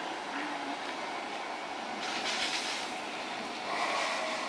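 Hankai Tramway's Sakai Tram 1001 "Chacha", a low-floor streetcar, running in toward a street stop over steady street noise. A brief hissing rush comes about two seconds in, and a short higher tone near the end.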